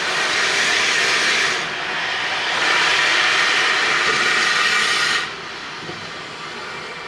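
Steam locomotive 60163 Tornado, an LNER A1 Pacific, letting off steam in two long, loud hisses; the second cuts off sharply a little after the middle.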